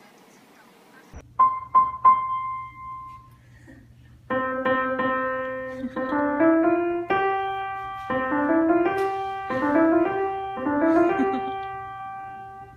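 Piano music: a few single notes about a second in, then a repeating melody of short rising note runs from about four seconds in.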